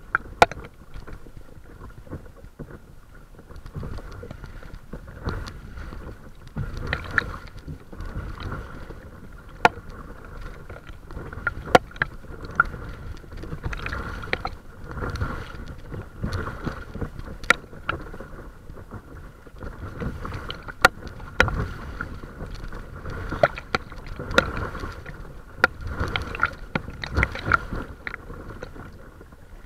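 Water lapping and splashing against the deck of a paddled small craft, with irregular sharp knocks every second or two. Low wind rumble on the microphone runs underneath.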